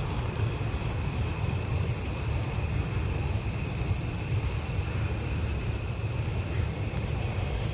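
Crickets and other night insects trilling steadily in a continuous high chorus, with a few brief higher buzzes and a low rumble underneath.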